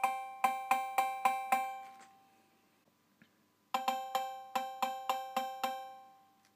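Breadboard rebuild of the Roland TR-808 analog cowbell circuit: two square-wave oscillators near 540 and 800 Hz shaped by an envelope and a bandpass filter, giving a metallic two-tone cowbell. It plays two runs of quick repeated hits, about four a second, with a pause between them. Each run rings out for a moment at the end, because the envelope's sustain parts (R82 and C34) are back in place.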